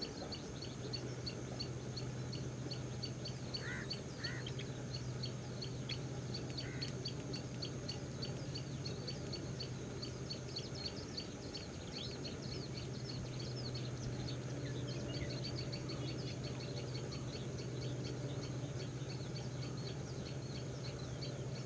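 Birds chirping in a rapid, continuous run of short high notes, about four a second. A few louder curving calls come about four seconds in and again at the end. Under them runs a steady low hum, and a thin high steady tone comes in about two-thirds of the way through.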